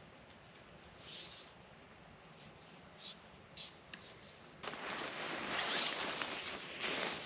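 Faint outdoor background with a few soft clicks and rustles and one brief high chirp, then, from about four and a half seconds in, a sudden louder, steady rustling.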